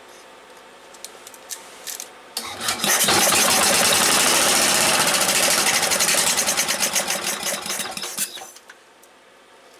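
Briggs & Stratton cast-iron engine cranking over and firing up on priming gas poured into the carburettor, running loud and fast for about five seconds, then fading out as it dies once the prime is used up. A few light clicks of handling come before it starts.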